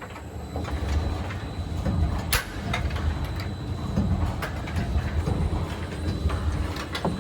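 Rotary bottle rinser being jogged round under its own drive to check a repaired neck clamp: a steady mechanical rumble with scattered clicks and knocks.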